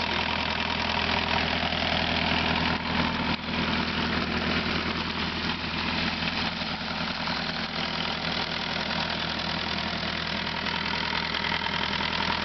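Freshly rebuilt Westerbeke 30 marine diesel running steadily at idle, with an even, smooth beat. The level dips briefly about three seconds in.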